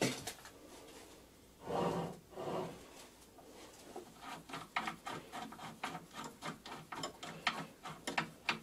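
A hand handles the steel face mill on the stopped lathe spindle. Two soft rubbing swells about two seconds in are followed by a run of irregular light metallic clicks, a few per second, through the second half.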